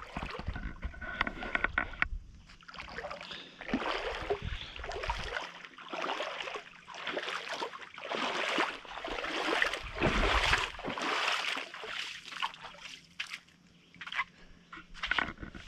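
Shallow lake water splashing and sloshing in irregular surges about a second apart as a person wades through it toward shore, fading near the end.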